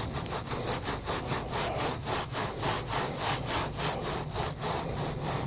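A rug being scrubbed by hand back and forth to work cleaner into a stain, about three to four rasping strokes a second, keeping an even rhythm.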